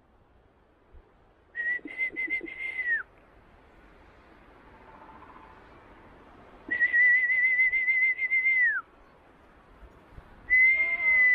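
A person whistling to call a dog: three long, steady whistles, each held with a slight flutter and dropping in pitch at the end.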